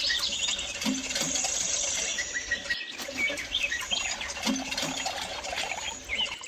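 Small birds chirping in quick, repeated calls, with insects trilling.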